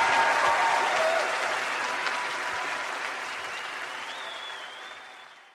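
Concert audience applauding at the end of a song, the clapping fading away toward the end.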